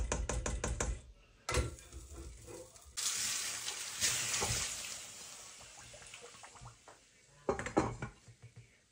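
A soup ladle knocked in quick succession against the rim of a stainless steel pot, about six taps in a second. Then a few seconds of running water that fades away, and near the end a glass lid clattering onto the pot.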